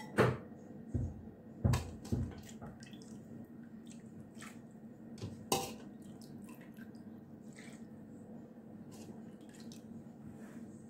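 A metal ladle stirring and scooping stew broth in a cooking pot, knocking against the pot a few times, loudest in the first two seconds and once more about five and a half seconds in. Broth splashes and drips back from the ladle between the knocks, over a low steady hum.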